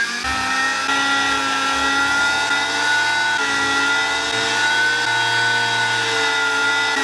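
Dremel 3000 rotary tool running at steady speed after a stator repair, driving a flex-shaft engraving bit that cuts into plastic. Its steady whine drops slightly in pitch about three and a half seconds in and again near the end as the bit bites.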